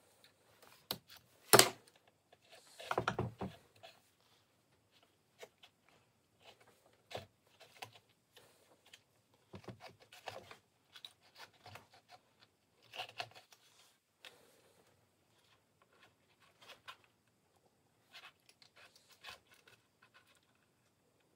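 Hand-stitching a birch bark knife sheath: needles pushed through the bark and leather-sewing thread drawn tight, giving scattered rustles, scrapes and small clicks. A sharp click comes about a second and a half in, followed by a burst of crackling rustle.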